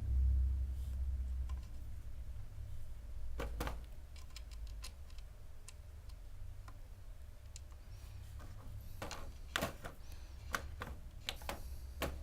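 Small snare-drum hardware, washers and lug screws, being handled and fitted, giving scattered light clicks and taps: a few about a third of the way in, then more near the end, over a low steady rumble.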